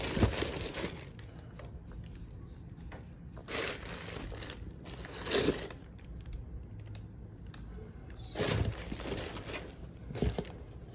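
Handling noise of sneakers and tissue paper in a shoebox: a few short bursts of rustling and rubbing as the shoes are turned over in a hand.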